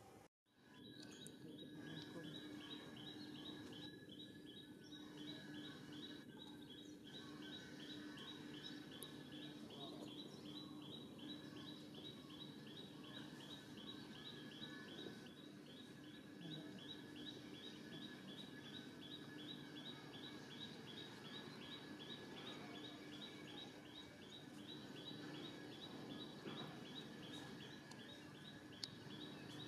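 Faint forest ambience: a high chirp repeated rapidly and evenly throughout, over a steady low hum.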